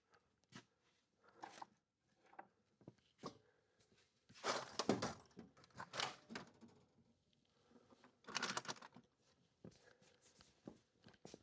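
Faint handling noises: scattered light clicks and knocks, with short bursts of rustling and scraping about four and a half, six and eight and a half seconds in.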